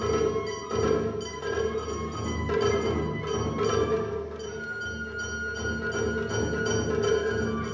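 Japanese festival hayashi music: a shinobue bamboo flute plays over a running pattern of strokes on the shime-daiko and taiko drums. The flute holds one long note over the drumming near the end.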